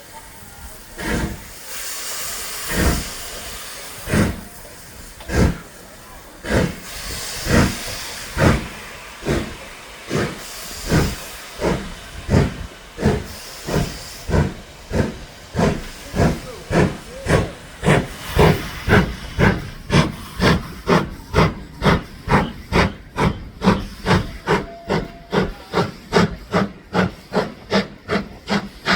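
Steam locomotive of the Jacobite train pulling away: a hiss of steam, then exhaust chuffs that speed up steadily, from about one a second to about two and a half a second.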